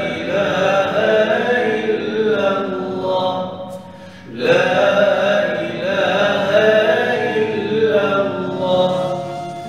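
A man's unaccompanied voice chanting an Islamic recitation in long, ornamented melismatic lines. He breaks off for a breath about four seconds in, then carries on.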